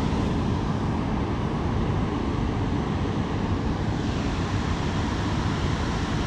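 Steady rushing of river water at a weir dam, an even roar that does not change.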